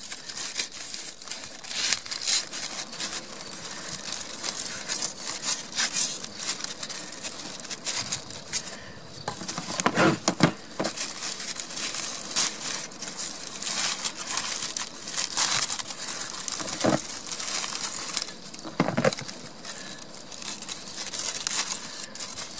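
Aluminium foil wrapping being cut with a knife, torn and peeled open by hand: a steady run of irregular crinkling and crackling, with a few louder crunches about halfway through and again near the end.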